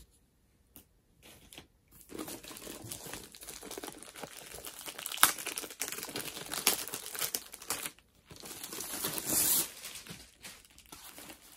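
Clear plastic wrapping crinkling and rustling as it is handled and pulled off a rolled diamond painting canvas, starting about two seconds in, with a short pause near the end.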